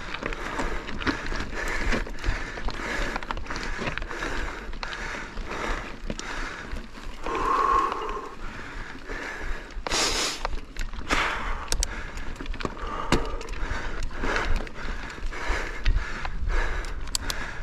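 Mountain bike rattling and clicking over rocky trail, with the rider's hard, rhythmic breathing and low wind rumble on the microphone. A short burst of hiss comes about ten seconds in.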